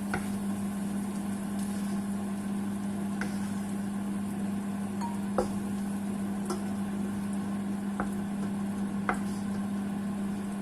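Metal utensil clinking against a frying pan every second or two as fried shrimps are lifted out of spiced oil, with faint sizzling and a steady low hum underneath.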